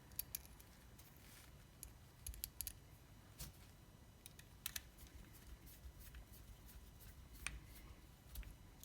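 Faint, scattered sharp clicks and taps of small metal parts as the motor is seated back into a KillerBee rotary tattoo machine and its screws are done up with a small Allen key.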